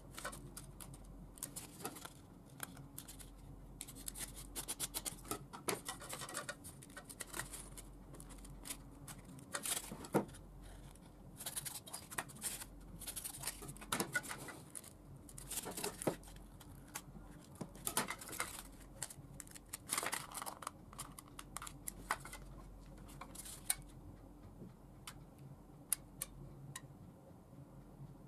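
Scissors snipping through a foam cup, with foam pieces rubbing and being set down on a wooden table: a long, irregular string of scratchy snips, crackles and light taps.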